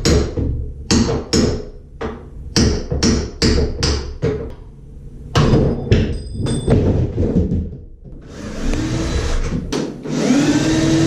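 A rapid series of sharp knocks and taps from tools working on a shower door's fittings, with a few brief metallic rings around six seconds in. From about eight seconds in a power tool motor whirs, its pitch rising near the end.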